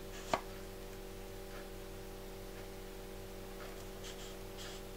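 Hands handling a Sigma 70-300mm zoom lens: one sharp click about a third of a second in, then a few faint rubbing touches, over a steady low electrical hum.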